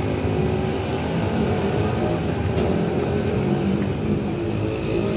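A vehicle engine running steadily, with a low, rough hum that does not change.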